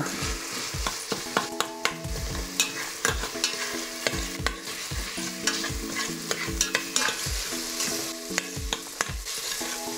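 Diced smoked chicken thigh sizzling in the stainless-steel inner pot of an Instant Pot on sauté while a metal spoon stirs it. The spoon knocks and scrapes against the pot over and over, with short ringing clinks.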